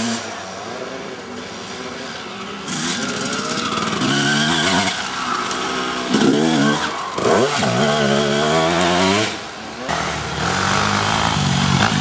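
Off-road dirt bike engines revving hard as riders pass close by. The engine pitch rises and falls with the throttle, and the sound changes abruptly a couple of times as one bike gives way to another.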